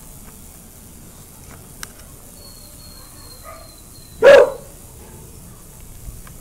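A boxer dog barks once, a single short, loud bark about four seconds in.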